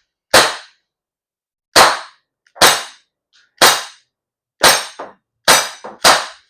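Glock 19 replica CO2 BB pistol, non-blowback, fired seven times as single shots, each a sharp crack with a short tail. The shots come roughly a second apart, a little quicker toward the end.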